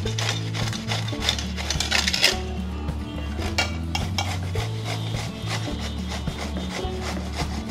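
Peeled bottle gourd rubbed up and down a flat stainless steel hand grater, a run of uneven scraping strokes, over soft background music.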